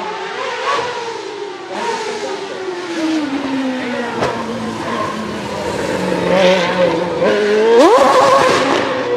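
2013 Sauber C32 Formula 1 car's Ferrari Type 056 2.4-litre naturally aspirated V8. The engine note falls steadily in pitch over the first few seconds and runs low for a while. Near the end it revs sharply upward into a high scream, the loudest part.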